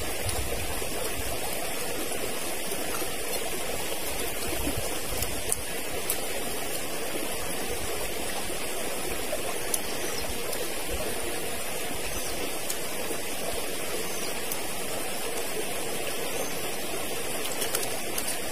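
A forest stream running steadily, with a few small clicks over the water noise.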